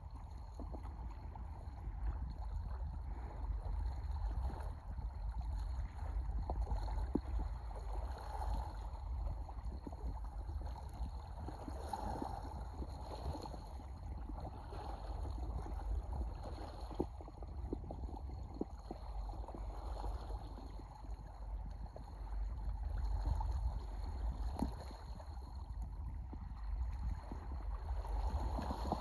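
Wind rumbling on the microphone over water lapping, with a few faint sharp clicks.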